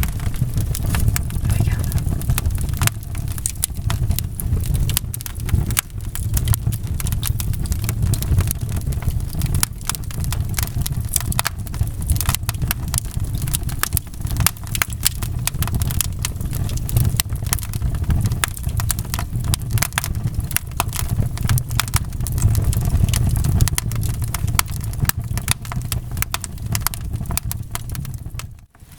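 Wood fire in a fireplace crackling, with many sharp pops and snaps over a steady low rumble of the flames. The sound drops out for a moment near the end.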